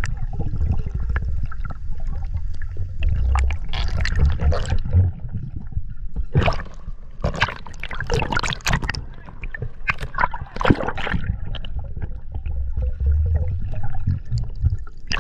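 Water sloshing and bubbling against a diver's action camera as it moves at and just below the sea surface. A steady low rumble of moving water runs under repeated short spells of splashing.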